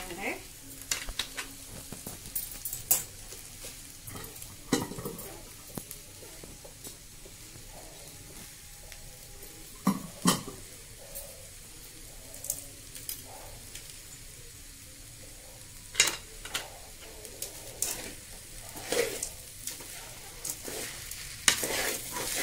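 Okra and peanut stir-fry sizzling in a metal pan while a long metal spatula stirs and scrapes through it. The spatula clinks against the pan every few seconds.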